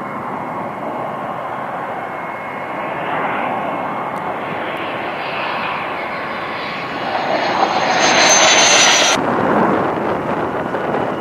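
Fighter jet engines at takeoff power, in spliced takes: a steady jet noise that swells with a thin high whine over it about two-thirds of the way through, then cuts off sharply into another take. The jets are a Panavia Tornado on its takeoff roll and an F-35 lifting off.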